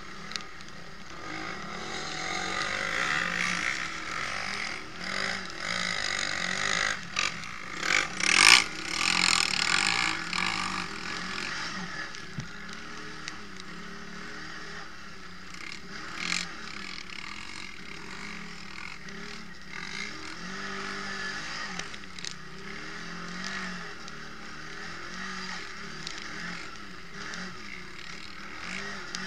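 Quad bike engine running hard, heard from a camera mounted on the machine, its pitch rising and falling with the throttle under a rushing noise. Several sharp knocks come through it, the loudest about eight seconds in.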